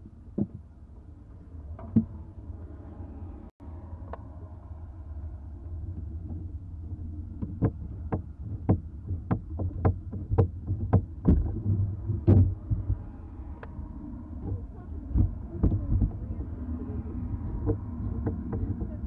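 Knocks and taps on a barn owl nest box, heard from inside it: a run of sharp knocks about one to two a second in the middle, a few more near the end, over a steady low rumble.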